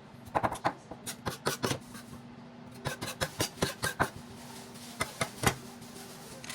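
Kitchen clatter: scattered clicks and knocks of utensils and dishes being handled, irregularly spaced, over a faint steady hum.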